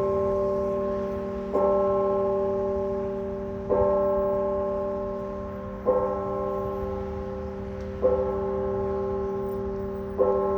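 A single church bell tolling, struck five times at an even pace of about one stroke every two seconds, each stroke ringing on at the same pitch and slowly fading into the next.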